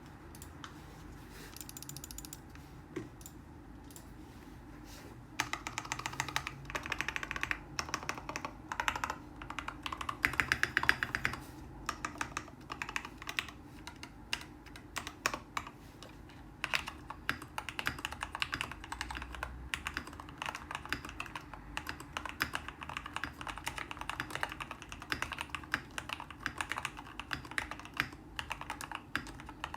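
Typing on a mechanical keyboard: a CiY Tester68 with lubed and filmed Gateron KS3 Yellow linear switches, PBT XDA keycaps and tape and PE-foam mods. After a few stray clicks, quick keystrokes start about five seconds in and run on steadily, with a fast flurry about ten seconds in.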